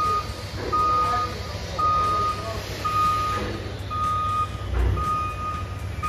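Scissor lift's motion alarm beeping: a single-pitch beep about half a second long, repeating about once a second, over low construction-site rumble. A low thump comes about five seconds in.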